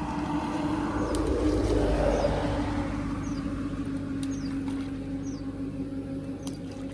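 A passing motor vehicle's steady hum, swelling to its loudest about two seconds in and then fading, with short high bird chirps.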